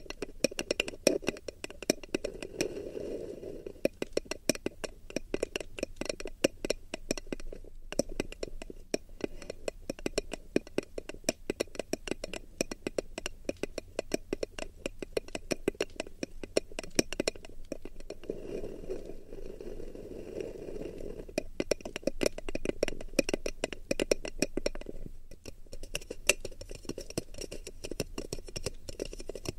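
Rapid close-up clicking and tapping against a binaural ASMR microphone, many small clicks a second, with stretches of soft rubbing mixed in.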